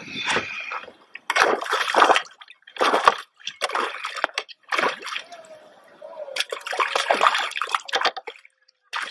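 Hooked northern pike thrashing at the water's surface beside the kayak: repeated splashes and sloshes in bursts about a second apart, with a longer run of splashing near the end.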